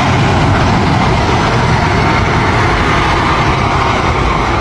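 A heavy vehicle's engine running loudly and steadily under a dense rushing noise, then cut off abruptly at the end.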